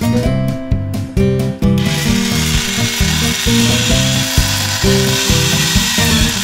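Toy chainsaw switched on about two seconds in and running with a steady, hissy whir, over background music with a steady beat.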